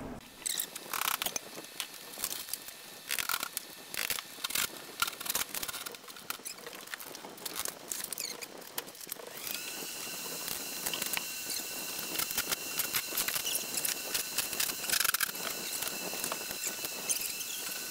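Scattered light clicks, taps and rattles of hands and hardware working an old exterior door loose from its frame. About halfway through, a faint steady high whine sets in beneath the taps.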